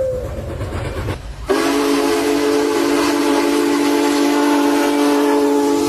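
A train horn dies away with its pitch falling over a low rumble. About a second and a half in, an abrupt cut brings another train horn, sounding a loud, steady chord of several notes.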